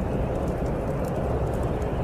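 Steady snowstorm wind, a dense rushing noise with no let-up, with faint scattered crackles of a wood fire.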